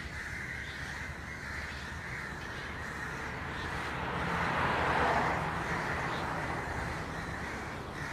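Crows cawing over a steady background noise that swells in loudness around the middle.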